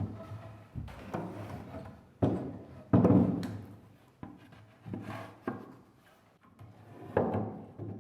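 Wooden stair parts (treads and stringers) being handled and fitted together: a series of wooden knocks and rubbing slides as a tread is set into a stringer, the loudest knock about three seconds in.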